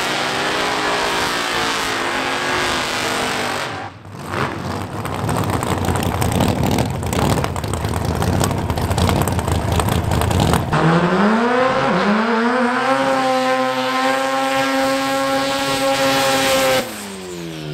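Drag race cars doing burnouts, in edited clips. First an engine runs at high revs. After a cut about four seconds in comes several seconds of rough tyre-spinning noise mixed with engine. Then another engine revs up, holds steady at high revs and drops away near the end.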